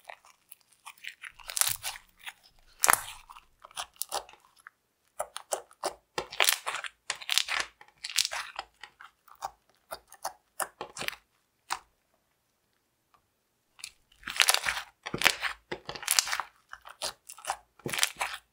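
Homemade slime, made from a peel-off face mask and borax activator, squeezed and poked by hand: crackling, popping clicks in quick clusters, with a pause of about two seconds partway through.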